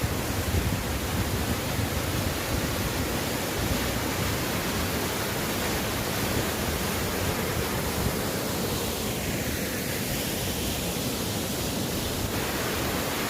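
Full-flowing Orekhovsky waterfall: a steady rush of falling water.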